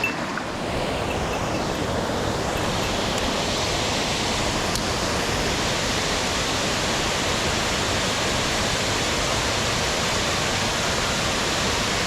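Mountain headwater stream running: a steady, even wash of water noise.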